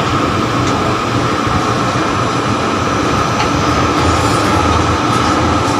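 Tower crane machinery running, heard inside the operator's cab: a steady drone with a constant whine over a low hum, as the crane is worked from the joystick controls.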